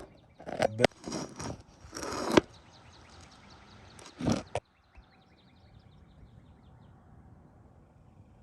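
Hand work on a small carburetor: a few short, loud noisy bursts and sharp clicks in the first couple of seconds, and one more burst about four seconds in. Then faint, rapid chirping from birds in the background.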